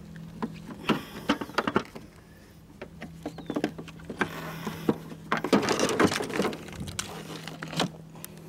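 Footsteps crunching on gravel with scattered light knocks and clicks, busiest and loudest about five and a half to seven seconds in, over a steady low hum.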